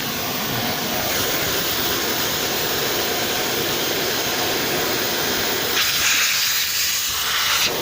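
Compressed air hissing steadily out of a leaking air-brake hose at a KamAZ truck's spring-brake chamber, a sign of a split hose bleeding off system pressure. About six seconds in the low rumble drops away and a sharper, clearer hiss remains.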